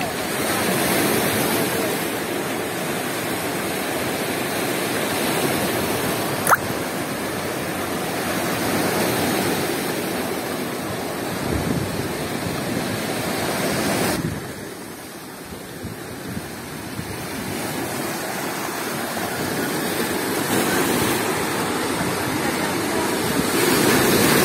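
Storm surf on the Black Sea: waves breaking and washing over a rocky shore as a steady rush of water. A single sharp click comes about six and a half seconds in, and the rush eases briefly about two-thirds of the way through before building again.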